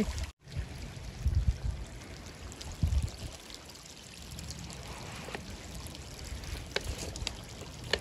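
A small woodland stream trickling and babbling steadily. The sound drops out for a moment just after the start, and a few dull low bumps come in the first three seconds.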